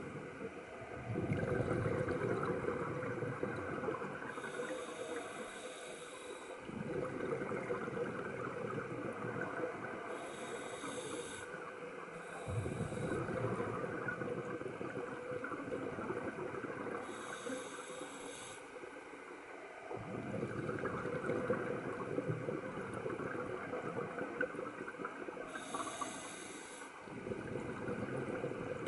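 Scuba regulator breathing heard underwater: a short hissing inhale through the regulator, then a longer rush of exhaled bubbles. The cycle repeats about every six to seven seconds.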